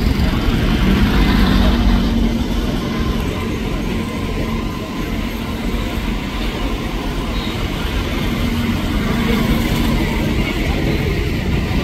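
Motorcycles passing close by over a steady din of street traffic, their engines humming up twice as they go past.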